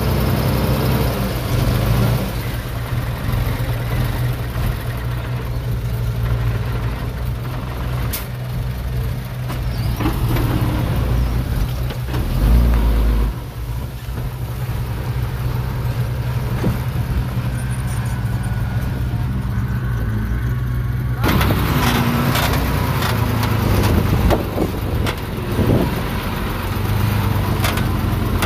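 Diesel engine of heavy earthmoving machinery running with a steady low drone that swells briefly about twelve seconds in. About twenty-one seconds in, a harsher, noisier sound joins it abruptly, and there are a few sharp knocks near the end.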